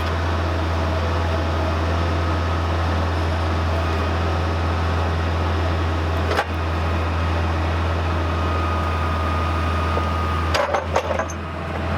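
Bobcat 743 skid steer running at high engine speed: a steady low drone with a steady whine above it. There is a single knock about six seconds in and a few clunks near the end.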